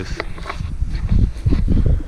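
Wind buffeting the microphone in low rumbles, with scattered crackles and rustles of footsteps moving through leaves and brush.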